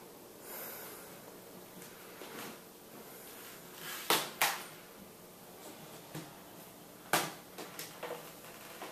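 A few sharp knocks or clicks in a small room over a low hiss, two close together about four seconds in and another about seven seconds in, followed by several fainter ones.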